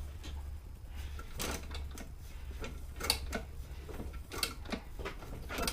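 Scattered clicks and clanks of metal parts and tools being handled on an old mini bike, a few sharp knocks a second or so apart, over a steady low hum.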